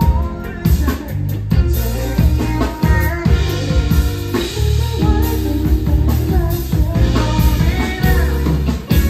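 Live rock band playing: a man sings over electric guitar, electric bass and a drum kit with a steady beat.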